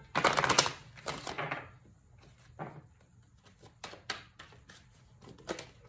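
Tarot cards handled and shuffled by hand: a short loud rustling burst at the start, then scattered light clicks and taps of the cards.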